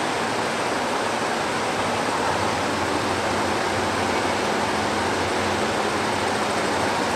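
A 15-head Richpeace embroidery machine running, a steady mechanical hiss and rattle of stitching with a low hum underneath.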